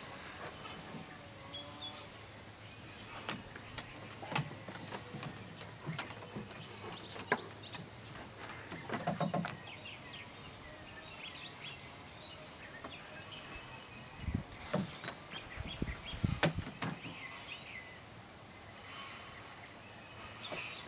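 Backyard ambience with small birds chirping on and off, over scattered light rustles and clicks. A few dull low thumps come about two thirds of the way through.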